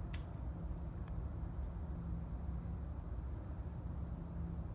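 Steady high-pitched chorus of crickets at night, over a steady low hum.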